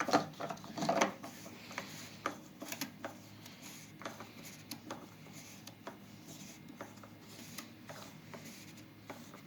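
Scattered light clicks and rubbing as a plastic fuel cap is handled and screwed back onto a push mower's gas tank.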